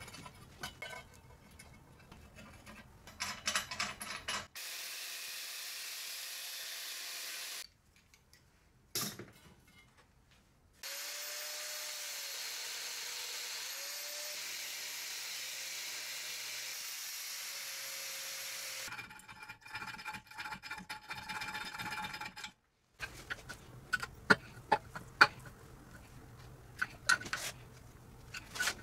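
Metalworking sounds in several short cuts. First scraping and clicking of hand tools on metal, then a power tool running steadily twice for several seconds, then a tool's steady whine, and near the end a run of sharp taps and knocks on metal.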